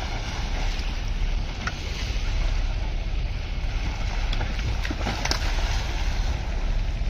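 Steady low wind noise on the microphone over open river ambience. About five seconds in come a few knocks and splashes as a cow steps down a bamboo ramp into shallow water.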